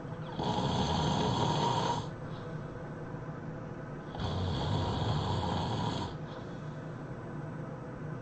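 A person snoring heavily: two loud, rasping snores about four seconds apart, each lasting under two seconds, with quieter breathing between them.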